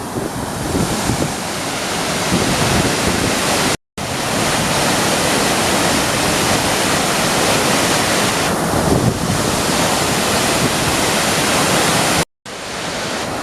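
Water of the Triberg Waterfalls cascade rushing, close and loud as a steady, even noise, with two brief cut-outs, one about four seconds in and one near the end.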